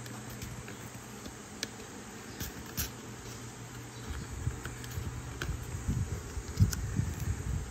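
Hands handling and working open a toy's cardboard-and-plastic blister pack: scattered small clicks and crinkles, with heavier rubbing and handling noise from about four seconds in.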